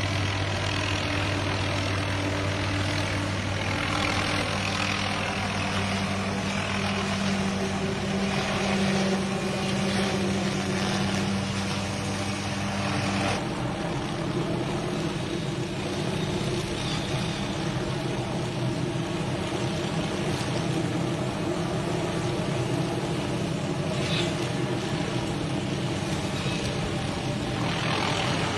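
An engine running steadily, its pitch dropping suddenly about halfway through and then holding at the lower speed.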